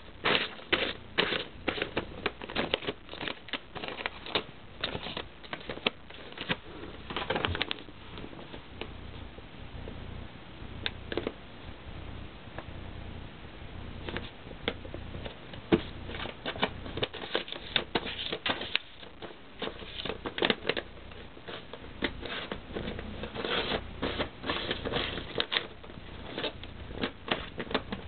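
A cat rummaging among papers and file folders in a drawer, making irregular rustling and crackling of paper. The rustling is busiest at the start and again through the second half, with a sparser stretch in the middle.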